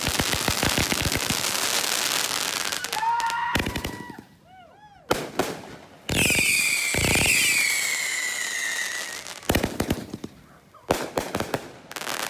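Fireworks going off. A rapid crackling barrage runs for the first few seconds. Then come whistling shells: a short whistle, warbling swoops, and a long whistle falling in pitch, with sharp bangs and pops scattered through.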